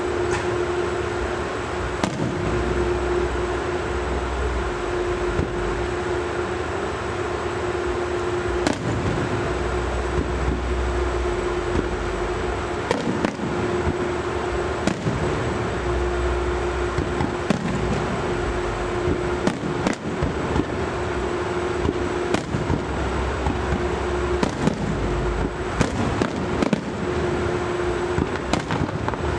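Fireworks bursting: sharp bangs at irregular intervals, coming more often near the end, over a steady hum.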